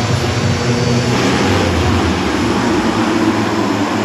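A full gate of supercross motorcycles revving their engines together at the starting line, a dense layered engine drone; about a second in the pitch climbs as the revs build.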